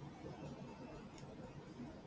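Faint room tone from a desk microphone, with a single faint click about a second in.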